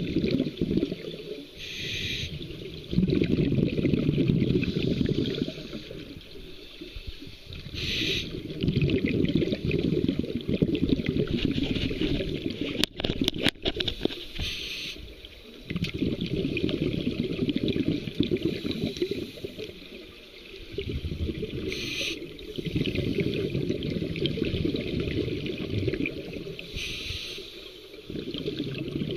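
Scuba diver breathing through a regulator underwater: a short hiss on each inhale, followed by a longer, louder burst of exhaled bubbles. The cycle repeats about every six seconds, five breaths in all. A few sharp clicks come near the middle.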